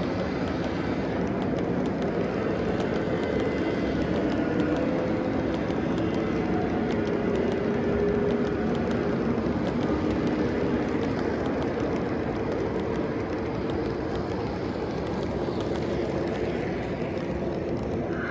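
Three-rail O gauge model trains running on the layout: a steady rumble of wheels and motors on the track, with a faint hum and light clicking over it.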